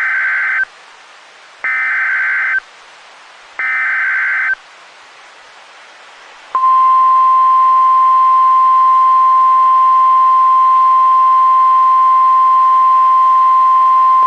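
Emergency Alert System activation on NOAA Weather Radio: three bursts of SAME header data, each a harsh digital warble about a second long and about two seconds apart. A couple of seconds after the last burst, the steady 1050 Hz weather-radio alarm tone comes on, announcing a warning.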